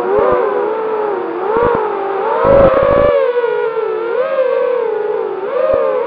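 Martian II 220 quadcopter's RMRC 2204 2300kv brushless motors and DAL tri-blade props whining, the pitch sliding up and down with the throttle, heard from the camera on board. A low rumble cuts in about two and a half seconds in for about half a second.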